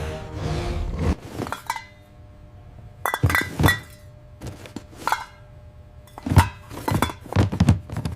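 A series of sharp clinks and knocks, several with a brief metallic ring, coming in small clusters; background music fades out in the first second.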